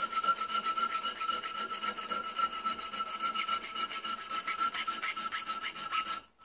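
Hand file scraping across a metal bracket clamped in a bench vise, in quick short strokes, with a steady high ring under them. The strokes break off briefly near the end.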